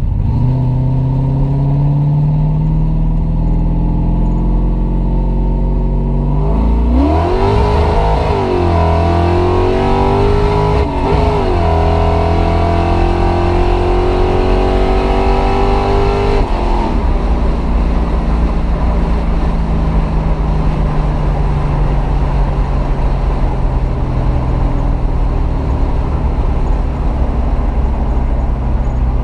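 C4 Corvette V8 cruising, then floored about a quarter of the way in: the revs jump and climb hard, dipping briefly twice, before the throttle is released about halfway through and the engine winds down as the car coasts. The owner reports the transmission is bad.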